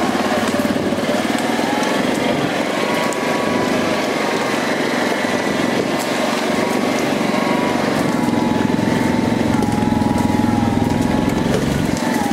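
Four-wheeler (ATV) engine running steadily as it is ridden, with a whine that wavers a little in pitch as the speed changes.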